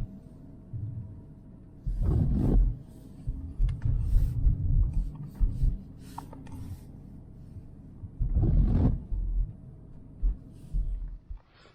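Car driving on a snow-covered road, heard from inside the cabin: an uneven low rumble with two louder bursts about two and eight seconds in, quieting near the end.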